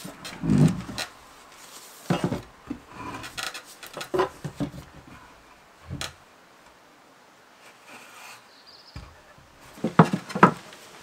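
Loose wooden roof of a hand-built hedgehog house being handled, taken off the box and set back on, giving a series of wooden knocks and rubbing of the plastic sheeting stapled over it. Two sharp knocks near the end, as the roof goes back on, are the loudest.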